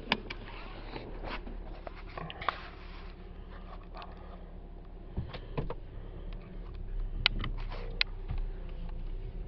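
Seatbelt webbing sliding out and the buckle and other cabin parts clicking several times inside a car, over the steady low hum of the idling engine.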